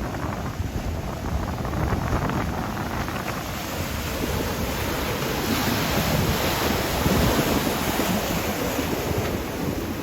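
Ocean surf breaking and washing on a beach, swollen by an approaching typhoon, with wind rumbling on the microphone. The rush of the surf swells louder past the middle.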